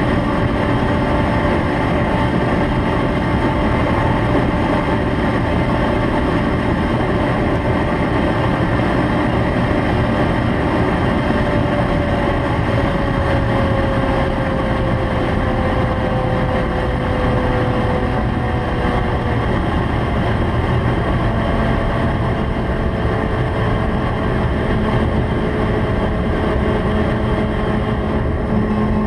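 Honda CBX 750F's inline-four engine running hard at high road speed, under a constant rush of noise, its pitch drifting slowly down now and then.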